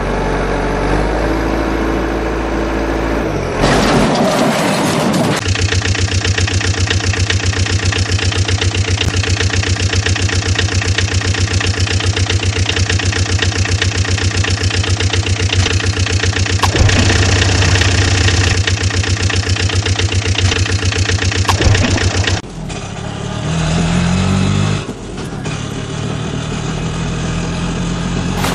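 Motor vehicle engine running steadily with a fast, even beat for most of the time, after a short noisy burst a few seconds in; near the end the sound changes and its pitch rises and shifts, as in revving.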